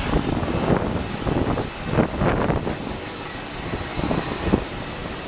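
Airport apron noise at a parked airliner: a steady turbine-like whine over low rumble. Several short thumps come through, about a second, two seconds and four seconds in.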